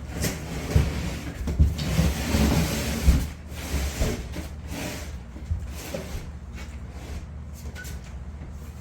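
A large wooden corner cabinet being shifted into place by hand: a run of dull knocks and wood scraping and rubbing over the first four seconds, then quieter shuffling.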